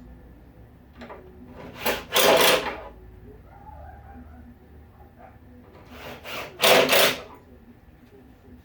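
Two short bursts of wood rubbing and scraping, about four seconds apart, from pre-finished plywood cabinet parts being handled and fitted.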